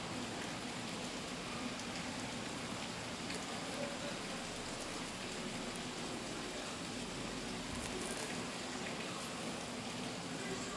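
Steady hiss with faint, scattered ticks and rustles as a sneaker is handled and turned over.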